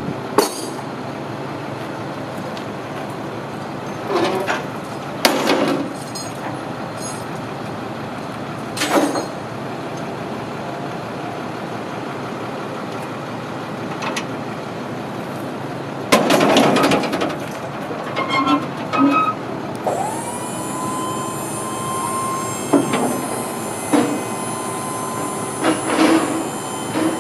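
Steel Leyman truck liftgate being handled: the diamond-plate platform is folded and moved with several loud metal clanks. About two-thirds of the way through, a steady whine starts and holds as the gate's hydraulic pump raises it into its stowed position under the body.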